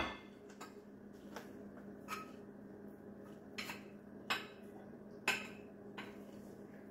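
Serving spoon tapping and clinking against a pot and plates while rice is dished out: scattered soft clicks, roughly one a second.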